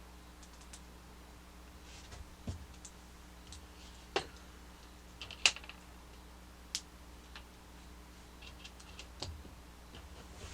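Scattered light clicks and taps of small plastic toy-robot parts being handled and fitted together, with one sharper click about five and a half seconds in.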